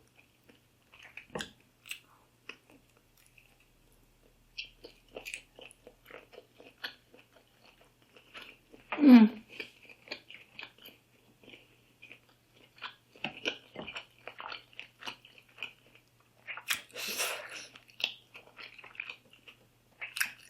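Close-miked chewing: a person eating boiled seafood, with many small wet clicks and smacks of the mouth. A short voiced hum about nine seconds in, and a hissing burst of breath or slurping around seventeen seconds.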